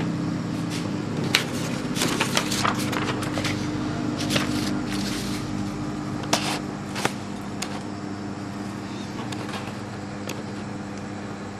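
A freshly printed sheet of paper rustling and crinkling as it is taken from the printer and handled, with scattered sharp crackles over the first seven seconds and a steady low hum underneath.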